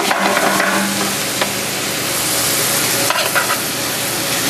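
Snow goose breasts frying in hot olive oil with onions and garlic in an aluminium skillet: a steady sizzle. A few light clicks of metal tongs on the pan come as the breasts are turned.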